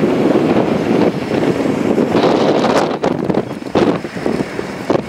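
Gusty wind blowing across the microphone, loud and uneven, dipping and surging in the second half.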